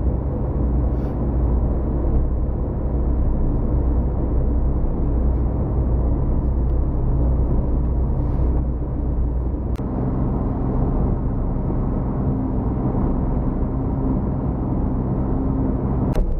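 Steady low drone of a cargo ship's diesel main engine running under way. A sharp click comes about ten seconds in, after which the hum shifts slightly, and a second click comes near the end.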